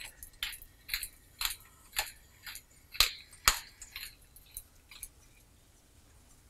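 Hand-twisted wooden pepper mill grinding black peppercorns: a run of short grinding strokes, about two a second, that stops about five seconds in.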